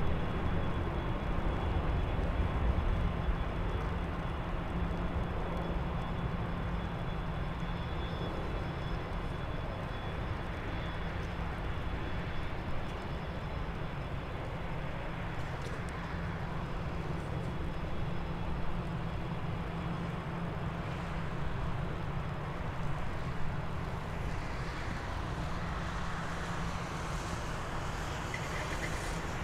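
Steady distant jet rumble of an Emirates Airbus A380-800 on landing approach, with a faint high whine over it through the first part.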